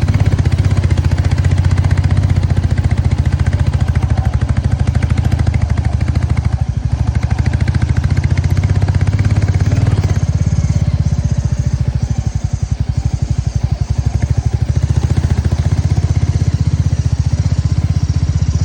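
A motor vehicle's engine running steadily while under way: a dense low drone with rapid, even pulsing. It eases briefly twice.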